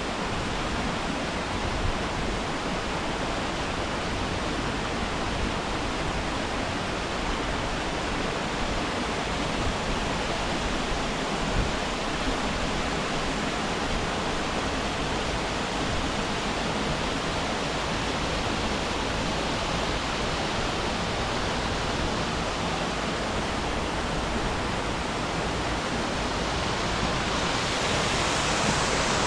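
Waterfall: a steady rush of falling water that holds unchanged throughout.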